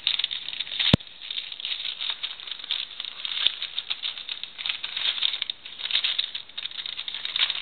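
Brown paper gift bag rustling and crinkling as it is handled and held open, a run of quick irregular crackles, with one sharp click about a second in.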